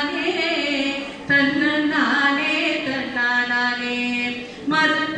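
A woman singing solo into a handheld microphone, holding long notes in a Carnatic-like style, with no accompaniment heard. She pauses briefly for breath about a second in and again near the end.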